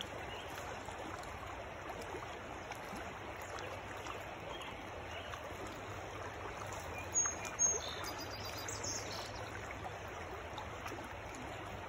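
Steady rush of a fast-flowing stream running over a rocky bed. Two short high-pitched notes stand out a little past the middle.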